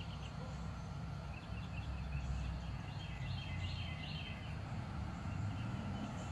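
Outdoor ambience: a steady low rumble with small birds chirping, the chirps thickest from about one to four seconds in.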